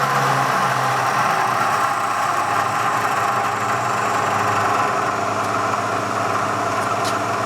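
Bridgeport Series 1 milling machine's 2 hp variable-speed head running, its spindle turning at a steady speed with an even hum and whine.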